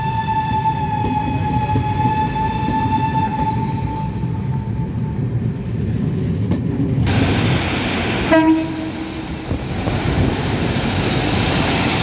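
A long, steady single-note train horn blast that fades out about five seconds in, over the continuous low rumble of coaches running past. After an abrupt change in the background about seven seconds in, a short, lower-pitched horn toot follows.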